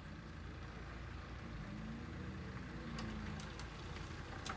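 Car engine running low and steady, with a faint rise and fall in pitch and a few light clicks.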